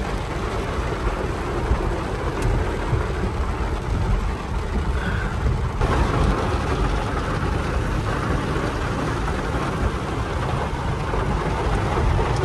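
Car driving in rain, heard from inside the cabin: steady engine and road noise with rain falling hard on the car.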